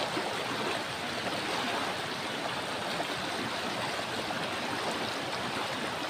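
River water flowing over stones: a steady rush with a fine, crackling babble.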